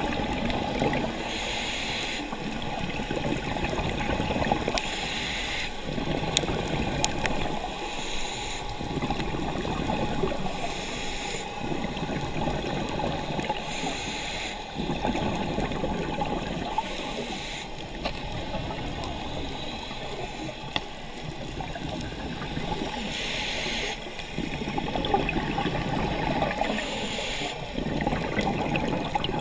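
Scuba diver breathing through a regulator, heard underwater: a short hiss of each inhale about every three seconds, followed by the bubbling rumble of the exhale.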